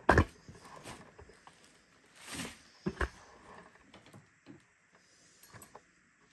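Knocks and thumps with a short scraping rustle from a large packing box being handled. The loudest thump comes just at the start, the rustle about two and a half seconds in, then two knocks close together and a few light clicks near the end.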